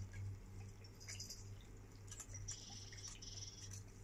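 Faint high chirps and clicks from a tablet's small speaker playing a video, over a steady low hum; the chirps cluster about two and a half to three and a half seconds in.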